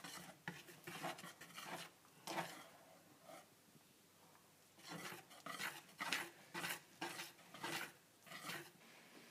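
Wire whisk beating thick cake batter in a mixing bowl: quick scraping, slapping strokes against the batter and bowl. They ease off for about two seconds in the middle, then start again.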